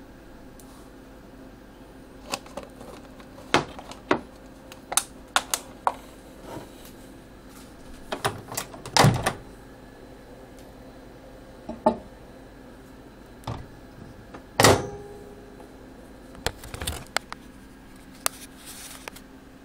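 A GE turntable microwave oven being handled, its door opened and shut around a glass bowl of chocolate chips: a string of clicks, clatters and knocks, the loudest about nine and fifteen seconds in, over a steady low hum.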